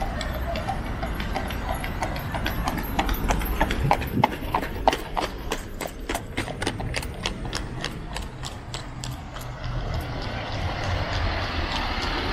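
Horse's hooves clip-clopping in a quick, even rhythm as a horse-drawn carriage passes, growing louder to about the middle and then fading away.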